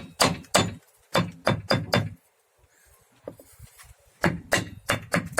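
Rapid hammer blows on a VAZ-2110's rear brake drum to knock it loose for removal, in two bursts of quick strikes with a pause of about two seconds between them.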